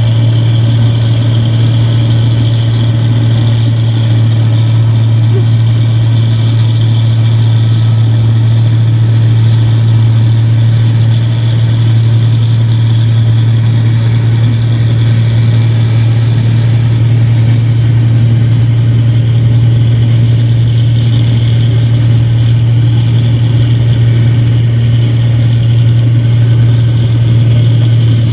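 Rice combine harvester's diesel engine running steadily under working load, a constant low drone with a steady high whine from the machinery.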